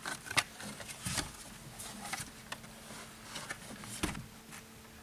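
Scattered light clicks and plastic knocks as a truck's lower dash trim panel is handled and moved, with a faint steady hum underneath.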